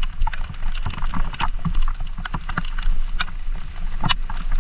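Mountain bike ridden along a waterlogged trail in pouring rain: irregular sharp clicks and knocks over a steady low rumble.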